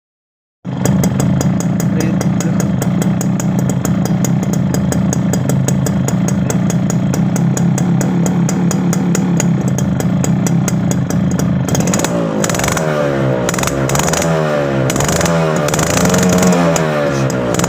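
Kawasaki GT7 Sports 100 motorcycle engine starting up suddenly and running steadily. From about twelve seconds in, the throttle is blipped repeatedly, so the engine pitch rises and falls again and again.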